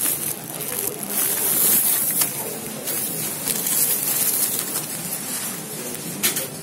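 Fast-food restaurant background din: a steady haze of indistinct kitchen and counter noise with a high hiss, broken by a short click about two seconds in and another near the end.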